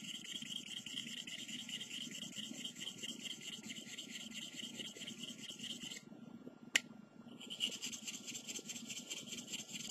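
Steel stab-knife blade stroked back and forth on a polishing stone, a fine, steady scraping hiss: the polishing stage of sharpening. About six seconds in the strokes pause briefly with one sharp click, then resume.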